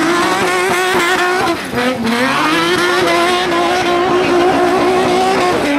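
Car engine held at high revs during doughnuts. It drops briefly about a second and a half in, then climbs back and holds steady.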